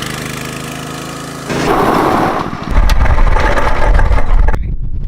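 A vehicle engine running steadily. About three seconds in it turns to a much louder low rumble, which eases off shortly before the end.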